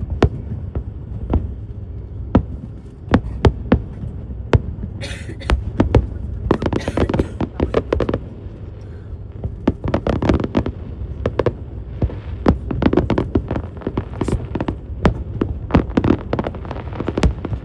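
Fireworks display: a rapid run of sharp bangs and crackles over a steady low rumble, packed most densely from about six seconds in.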